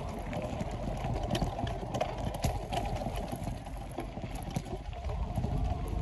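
Bicycle riding along a dirt trail strewn with dry leaves: tyres rolling and crunching over the leaves, with scattered small clicks and rattles and a steady low rumble.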